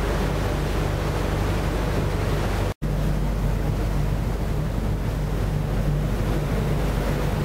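Fishing boat's engine running steadily underway, a low even drone under the rush of water and wind buffeting the microphone. The sound cuts out for an instant about three seconds in.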